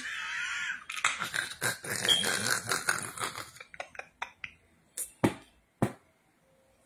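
A woman laughing hard: a high wavering squeal at first, then rapid breathy, wheezing gasps of laughter that thin out into a few sharp clicks.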